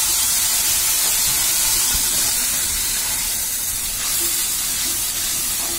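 Wet ground-mustard and tomato masala paste sizzling loudly in hot oil in a kadhai, a steady hiss of freshly added paste frying, easing slightly later on.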